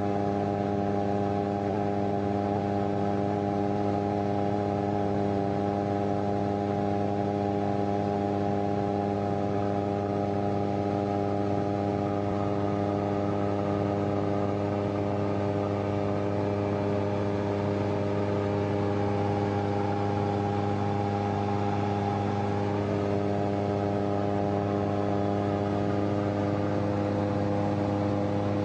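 CFM Shadow microlight's engine and propeller running at a steady setting, a constant drone with a slight waver in pitch about twenty seconds in.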